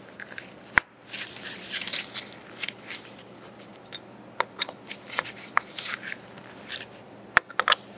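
Small metallic clicks, taps and scraping as a slim hand tool is worked in a hole in the side of a Monarch 612 lathe's tailstock. There is a sharp click about a second in and another near the end.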